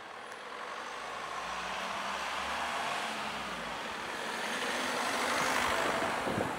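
A large motor vehicle passing close by: a low engine hum under tyre and road noise that grows louder, peaks near the end, then begins to fade.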